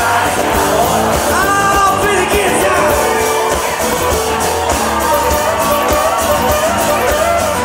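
Live country-rock band playing on acoustic guitars and drums, with singing.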